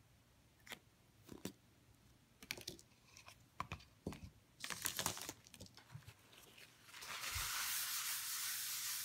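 Light clicks and taps of small objects handled on a tabletop, then, about seven seconds in, a steady rustling as a paper towel is rubbed across a sheet of paper.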